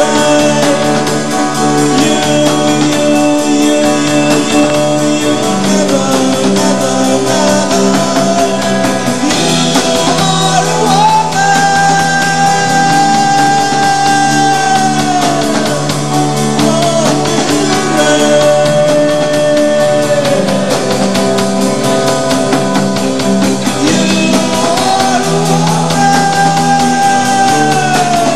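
Rock band playing live with drums, bass guitar, electric guitar and keyboards. A lead line of long held notes rides on top, three times sliding down in pitch as a note ends.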